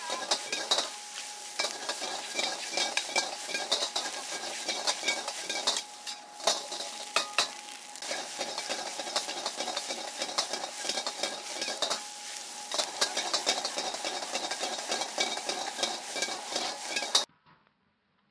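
Egg fried rice sizzling in a wok as a metal ladle scrapes and clatters against the pan in quick, repeated stir-fry strokes. The sound cuts off suddenly near the end.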